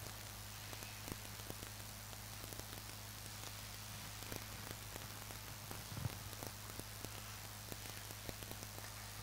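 Steady low electrical hum and hiss from the live microphone and sound system during a silent pause, with faint scattered clicks and a soft bump about six seconds in.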